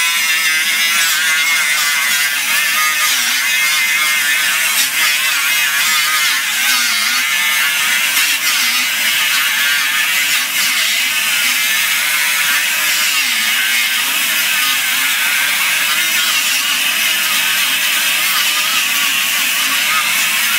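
Small angle grinder with a 3-inch disc grinding down hard MIG plug welds on sheet steel, running without a break. Its high whine wavers in pitch over a steady grinding hiss as the disc is pressed into the welds.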